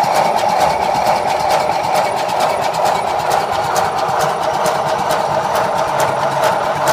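Maxitrak R1 7¼-inch gauge live steam locomotive running fast on a rolling road: a rapid, even clatter of exhaust beats and valve gear, with the wheels turning on the rollers.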